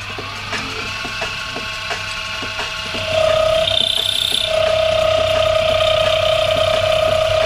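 Milling machine running, its pitch rising over the first second, with faint regular ticks. About three seconds in, a louder steady whine sets in and holds.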